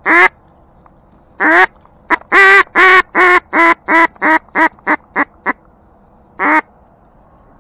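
Duck call blown by a hunter to draw in incoming ducks, loud and close. Two single quacks come first, then a run of about ten quacks that start long and get shorter and quicker, like a greeting call, and one last quack near the end.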